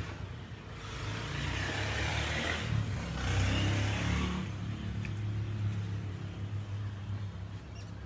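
A motor vehicle passing by: a low engine hum with a rushing noise that swells about a second in, peaks, and fades after about four seconds, the hum lingering a little longer.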